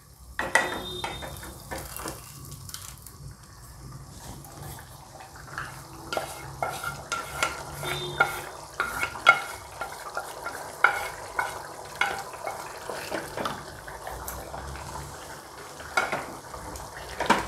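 Wooden spatula scraping curry gravy out of a non-stick pan into another pan and stirring it in, with irregular scrapes and knocks against the pans over a low sizzle.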